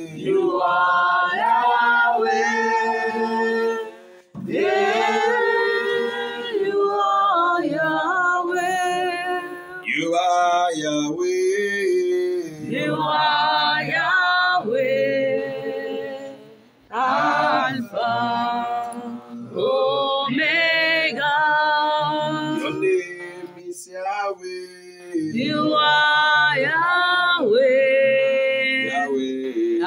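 A group of voices singing a worship chorus without instruments, with two short pauses between phrases.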